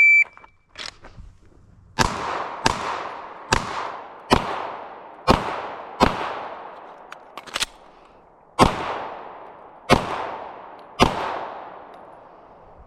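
A shot timer beeps once, and about two seconds later a string of about nine gunshots follows, spaced roughly a second apart, each ringing out in a long echo, with a short pause around the middle of the string.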